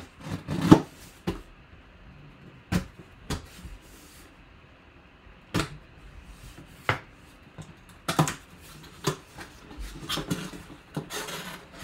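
A cardboard box being opened by hand: a knife slitting the packing tape, then the flaps pulled apart, with scattered knocks, rubs and scrapes of cardboard. The loudest knock comes about a second in.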